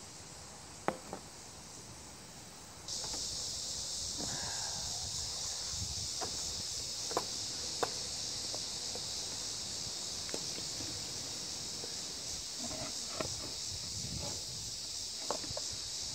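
Eggs frying in oil in a small camp pan over a wood stove: a steady high sizzle that jumps up about three seconds in and then holds, with a few light clicks and scrapes of tongs and spatula against the pan.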